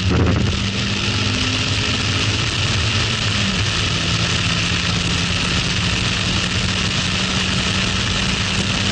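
Toyota MR-S's 1ZZ-FE four-cylinder engine, on its stock exhaust, pulling under acceleration, with heavy wind rush in the open cockpit. The engine note steps down once about three and a half seconds in.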